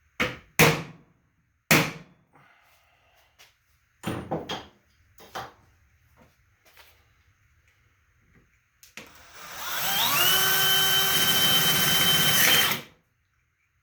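A few sharp knocks and clatters of handling, then an electric drill spins up with a briefly rising whine. It runs steadily for about three seconds, drilling a guide hole through the thin sheet-metal housing of a power strip, and stops abruptly.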